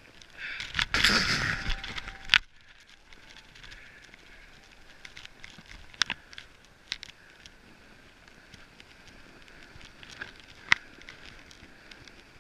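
Snowboard sliding over snow: a loud scraping rush for about two seconds near the start that cuts off sharply, then a quieter steady hiss with a few sharp clicks.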